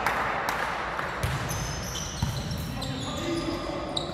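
Volleyballs being hit and bouncing on a hardwood court during warm-up: several sharp thuds at irregular intervals, echoing in a large sports hall.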